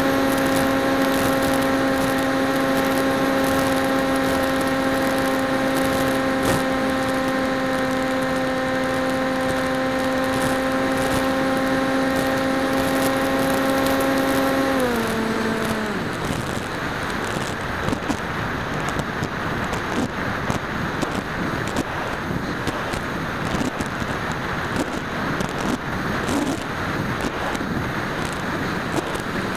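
Steady whine of the PopWing's electric motor and propeller, picked up by the onboard camera. About halfway through the pitch drops and the whine stops as the throttle is cut, leaving a rushing wind noise as the wing glides down.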